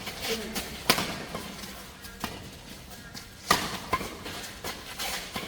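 Badminton rackets striking a shuttlecock in a doubles rally: a series of sharp, separate cracks, the loudest about a second in and again about three and a half seconds in, with lighter hits between.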